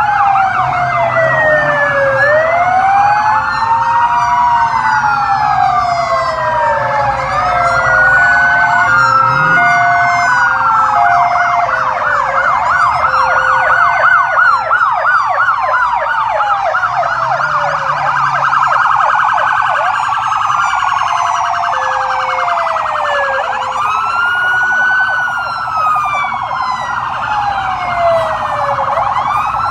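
Several police sirens on Fox-body Mustang SSP police cars sounding at once and overlapping: slow wails rising and falling, a fast yelp through the middle, and a two-note alternating tone in the first half.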